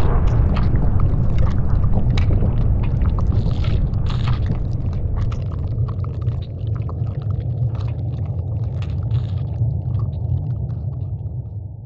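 Deep, slowed-down explosion rumble of a firecracker blast, trailing off slowly over many seconds with scattered crackles and ticks on top, then fading out near the end.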